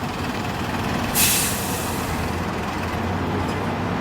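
Optare Solo bus running steadily, with a sudden sharp hiss of compressed air from its pneumatics about a second in, lasting under a second.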